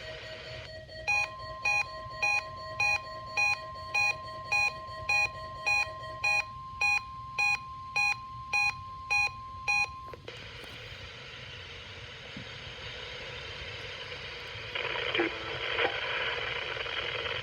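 NOAA Weather Radio's steady warning alarm tone sounds for about nine seconds, with an electronic alert beep repeating about one and a half times a second over it; this is the signal that opens a tornado drill alert. A lower steady tone runs beneath for the first six seconds. After the tones stop there is radio static hiss, which grows louder near the end.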